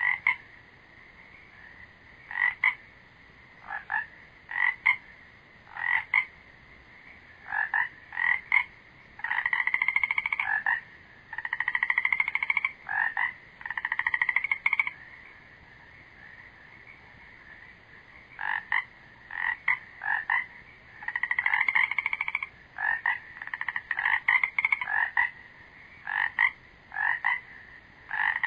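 Frogs calling: short pulsed croaks and longer pulsed trills of up to about a second, over a steady high hum.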